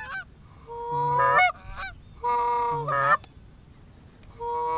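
Canada goose honks: three long drawn-out calls, each a held note that breaks upward at the end, with quieter gaps between.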